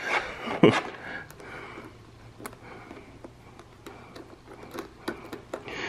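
A few faint, scattered metal clicks and ticks as a nut and washer are fitted by hand onto the threaded end of a tire stud, over a low steady hum. A short vocal sound comes near the start.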